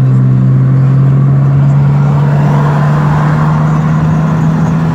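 BMW E90's 2.5-litre inline-six running through a dual-valve exhaust with both valves open, a steady droning note at constant pitch while the car cruises, with a little extra exhaust noise swelling around the middle.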